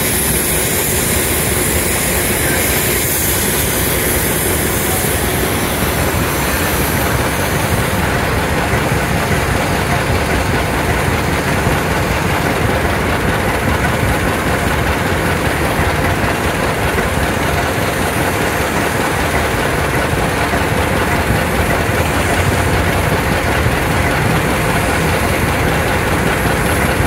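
Old farm tractor engine running steadily while driving in a slow parade, with a high hiss from a steam traction engine passing close by during the first several seconds.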